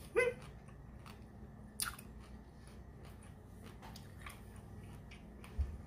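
Quiet chewing of rum-soaked pineapple chunks, with small wet mouth clicks. A short hum comes just after the start, and a soft thump near the end.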